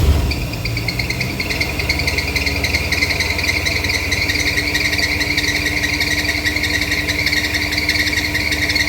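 Mercedes-Benz 500SEC's 5.0-litre V8 running at a steady idle just after starting, a fast low engine pulse with a steady high whine over it. It now starts and runs cleanly, the weak spark that kept it from starting cured by a new ignition coil.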